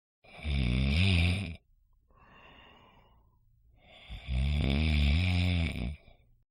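A person snoring: two long snores about three seconds apart, with a quieter breath between them. It is the rattle of air forced through a narrowed airway in sleep.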